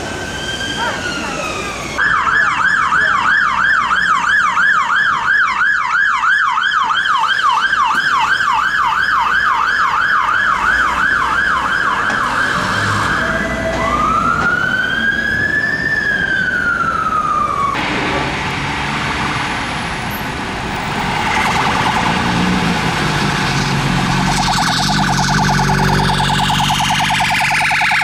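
Emergency vehicle sirens in traffic. First an ambulance siren on a slow wail. A London Fire Brigade Mercedes pump ladder's siren then runs a fast yelp and switches to a slow wail. From about two-thirds of the way through, a Metropolitan Police BMW X5's siren plays a rapid warble over engine and traffic noise.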